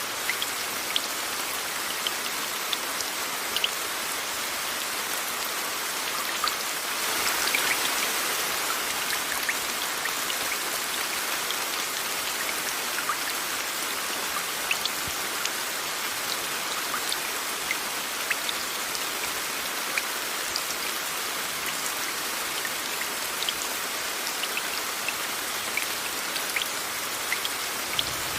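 Steady rain blended with a hiss of white noise, with many separate drops ticking through it. The rain swells briefly about seven seconds in.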